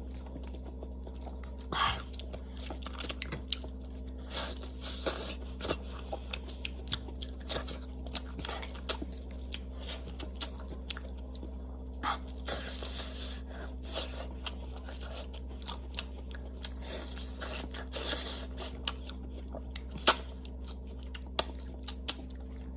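Close-up chewing and biting of food, with frequent short crunches and clicks scattered throughout, over a steady low hum.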